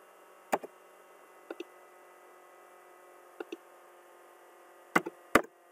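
Sharp clicks of a computer mouse and keyboard, mostly in quick press-and-release pairs, four clusters spread over several seconds, over a faint steady electrical hum.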